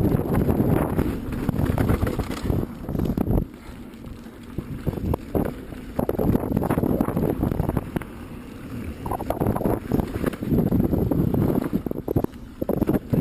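Carbon Pivot Switchblade mountain bike ridden down a rough trail: tyres on dirt, with the chain and frame rattling and knocking over bumps and wind buffeting the microphone. It eases off into quieter stretches twice.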